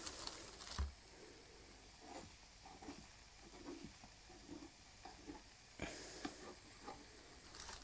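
Crêpe batter sizzling faintly in a frying pan on low heat, with a few brief scrapes and taps of a utensil against the pan.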